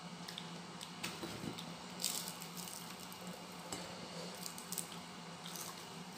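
Close-up eating sounds: wet chewing and lip smacks as fried fish and rice are eaten by hand, with scattered short clicks and smacks. A faint steady hum lies underneath.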